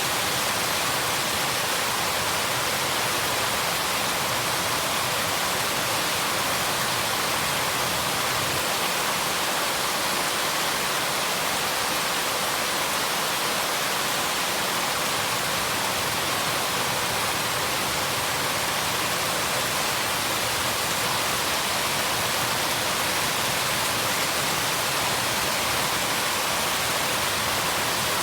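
Steady heavy rain, an even hiss with no separate drops or thunder standing out.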